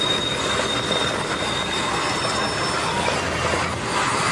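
Onion, chilli, ginger and tomato sizzling in melted butter in a large frying pan. The sizzle is a steady hiss, with a thin high whine over it that fades out about two-thirds of the way through.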